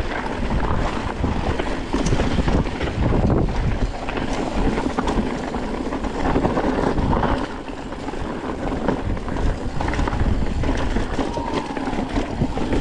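Wind rushing over the microphone, with the rattle, clatter and tyre noise of a mountain bike riding down a dirt trail.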